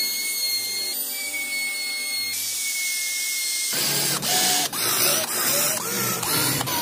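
A compact trim router runs with a steady high-pitched whine. About four seconds in, it gives way to an electric drill boring into wood, its pitch wavering as the bit bites and frees.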